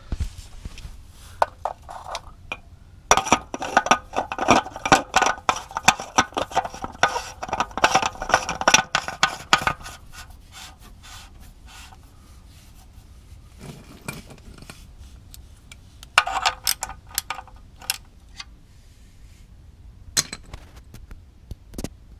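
Hard parts and hand tools clinking, rattling and scraping during oil-change work. A long stretch of rapid rattling comes a few seconds in, then a shorter burst and a few separate ticks later on.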